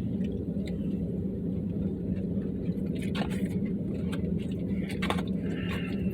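An engine running steadily, a constant low hum, with a few faint clicks and light knocks over it.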